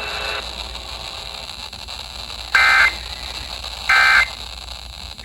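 Emergency Alert System end-of-message data bursts (SAME digital tones): two short, identical buzzy bursts a little over a second apart, with a third beginning right at the end, over a steady background hiss. They mark the end of the warning message.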